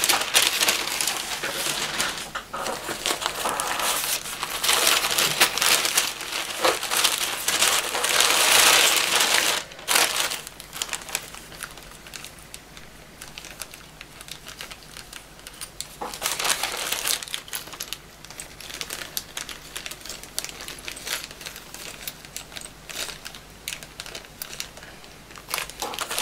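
Small plastic zip-lock bags of kit parts and the packing paper they lie on being handled, crinkling and rustling. The rustle is loudest for the first ten seconds or so, drops to scattered light clicks, and flares again about sixteen seconds in.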